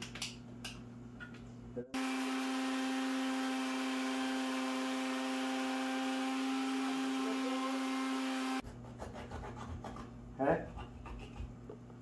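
Countertop blender switched on about two seconds in and running steadily for nearly seven seconds, blending raw eggs into a liquid mix: a steady motor hum with a whirring hiss, cutting off suddenly. Light clicks and knocks of hands on the blender jar come before and after it.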